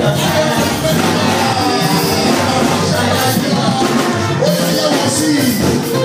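Children's choir singing a lively worship song over musical accompaniment.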